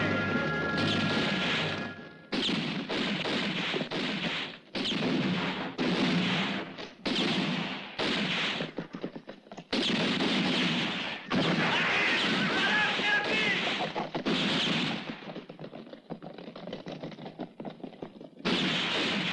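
Film-soundtrack gunfire in a western shootout: rifle and pistol shots come in dense volleys about a second long with short gaps between them. They thin out to scattered weaker shots, then a last loud volley comes near the end.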